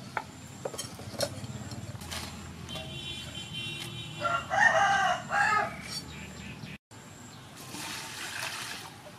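A rooster crows once, loudly, about four seconds in. Before it come a few sharp knife chops on a wooden cutting board, and near the end water is poured from a dipper into a metal basin of greens.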